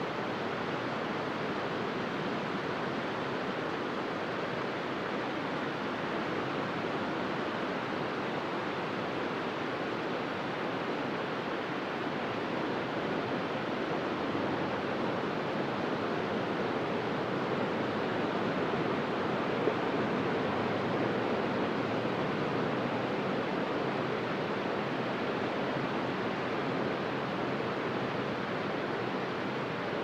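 Low surf breaking and washing over a flat sandy beach: a steady hiss of small waves that swells slightly about halfway through.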